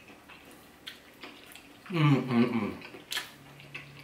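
A man eating: small clicks of a fork against a plate and mouth sounds, with a low hummed "mmm" about two seconds in and a sharp click shortly after.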